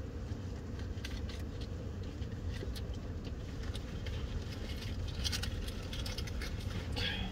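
2010 Toyota Prius driving, heard from inside the cabin as a steady low rumble of tyre and road noise. Scattered light clicks and rattles sit over it, bunched about five seconds in and again near the end.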